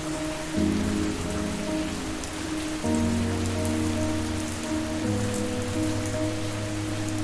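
Steady rain falling, a dense patter with scattered drop ticks, over a soft, slow music pad of held chords that change a few times.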